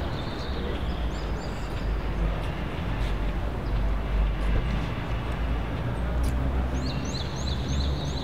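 Street ambience: a steady low rumble of traffic, with a small bird giving a quick run of high rising chirps about a second in and again near the end.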